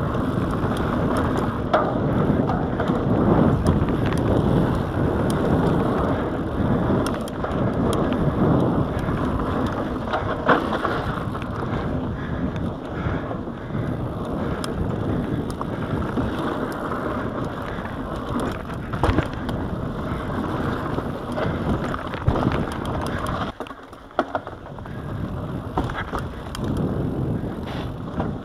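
Mountain bike running fast down a dirt singletrack: knobby tyres rushing over dirt and loose stones, with frequent sharp clicks and knocks from the bike over bumps. About 24 seconds in, the noise drops away for roughly a second, then picks up again.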